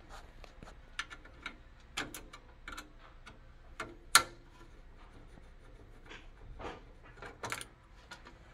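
Irregular small clicks and taps of a hex screwdriver and screws being handled while screws are worked loose, with one sharper click about four seconds in.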